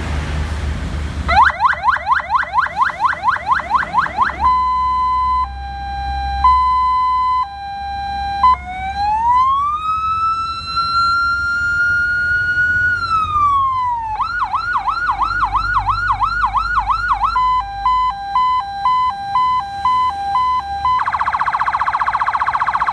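Electronic police-car siren cycling through its tones. A fast yelp of about five sweeps a second comes first, then a slow hi-lo two-tone, a long wail that rises, holds and falls, a slower whooping yelp, a quicker hi-lo, and near the end a very rapid warble.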